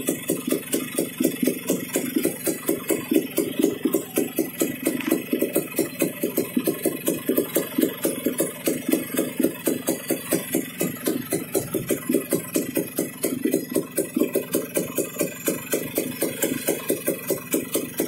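Kawasaki HD3 125 cc single-cylinder two-stroke engine idling steadily with an even, rapid pulse, freshly rebored to standard bore and being broken in.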